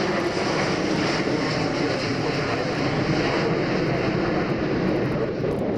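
Airbus A350 XWB airliner in flight, its twin Rolls-Royce Trent XWB turbofans giving a steady, loud jet engine noise as it passes during a low display pass.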